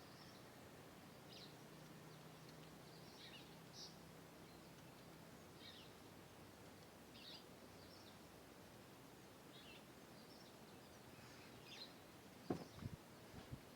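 Quiet ambience with faint bird chirps every second or two, and a few sharp clicks or knocks near the end.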